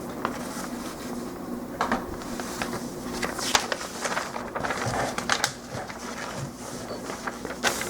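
Plastic model-kit parts and runners being handled and sorted, giving scattered sharp clicks and short rattles, loudest about three and a half seconds in and near the end, over a steady low background hum.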